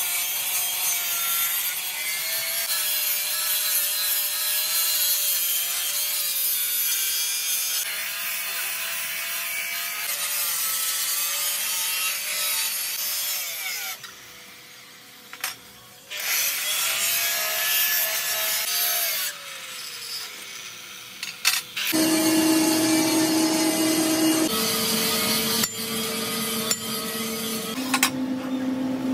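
Handheld angle grinder with a cutting disc slicing through thick steel plate: a loud hissing grind over the motor's steady whine. It drops away briefly about halfway through, then the cutting resumes and the motor's pitch sinks and climbs again. In the last several seconds a steady hum takes over, shifting pitch in a few steps.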